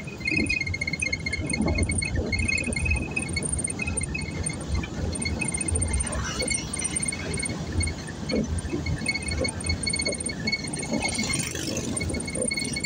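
Engine and road rumble inside a moving vehicle's cabin, with a thin, high chirping that keeps coming and going.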